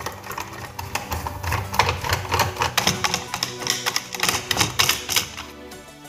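Rapid clicking and tapping of a hand screwdriver working screws out of the plastic housing of a double-cylinder car air compressor, with background music underneath.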